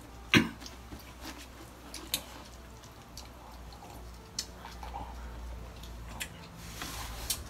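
Small wet eating noises: lip smacks, chewing and scattered clicks of people eating sticky rice and steamed fish with their hands, with one sharper click about half a second in. A low steady hum sits underneath.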